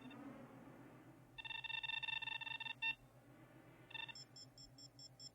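Electronic beeps from a voice-commanded image-enhancement computer carrying out a zoom command. A steady buzzing beep lasts about a second and a half, a short beep follows, then a rapid high-pitched pulsing chirp, all over a faint low pulsing hum.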